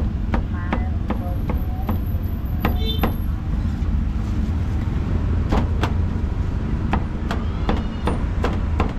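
Steel meat cleaver chopping barbecued pork on a wooden chopping block. The knocks come in irregular clusters, a few at first, then a quicker run of chops near the end, over a steady low rumble.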